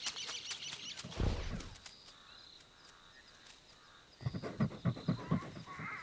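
Cape porcupine snuffling as it forages nose-down. A brief rustle of quills comes first, then a low snort about a second in, and near the end a quick run of about eight sniffs. Faint bird calls sound in the gap.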